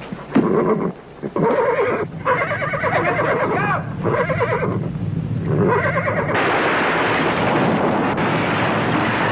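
A horse whinnying several times, shrill wavering cries. About six seconds in, a loud, steady rumbling roar sets in: the sound of an earthquake, with walls collapsing and debris falling.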